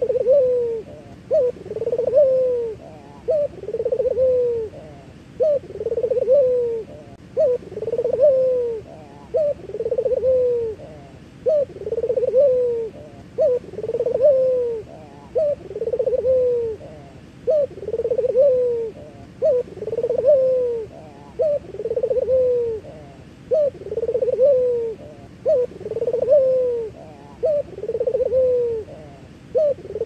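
Male Barbary (ringneck) dove cooing over and over: each coo is a short note followed by a longer note that rises and falls, about one coo every two seconds in a steady rhythm.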